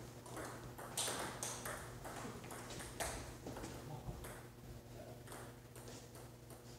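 Table tennis balls striking paddles and tables during rallies at several tables, heard as irregular sharp taps, a few a second.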